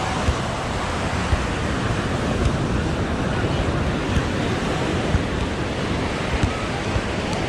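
Ocean surf washing on a sandy beach, a steady rushing noise, with wind buffeting the microphone in frequent low thuds.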